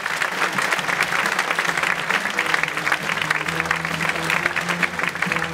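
Audience applauding a stand-up comic at the end of his set, with play-off music coming in about a second and a half in under the clapping.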